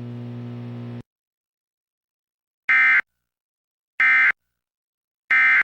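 Emergency Alert System end-of-message (EOM) data burst sent three times: three short, identical shrill digital chirps about a second and a quarter apart, marking the end of the alert. Before them, a low hum cuts off about a second in.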